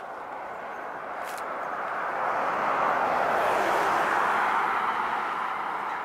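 A motor vehicle passing: a steady rushing noise that builds to a peak about halfway through and then slowly fades.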